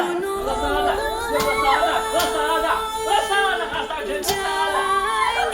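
Background music: a singing voice in a wavering, ornamented melody over a steady held drone note.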